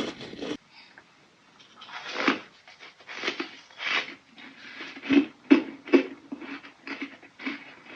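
Ice being bitten and chewed close to the mouth: a run of crunches that cuts off abruptly early on, then after a short pause separate crunchy chews about twice a second.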